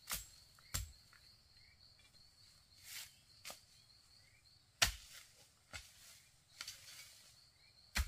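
Hoe blade chopping into forest soil and roots: separate sharp strikes a second or so apart, the loudest about five seconds in.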